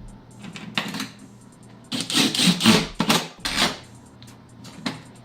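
Cordless impact driver hammering in short bursts as it drives door-panel screws home: one brief burst about a second in, then several in quick succession about two seconds in.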